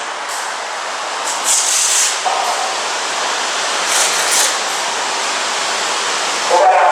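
Steady hissing noise, with two short, sharper bursts of hiss about one and a half and four seconds in.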